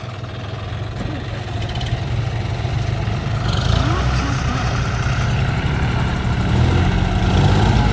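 John Deere tractor's diesel engine running, getting steadily louder.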